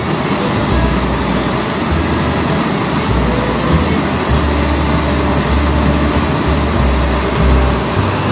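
Steady rush of water pouring over a river weir, with irregular low rumbling gusts of wind on the microphone.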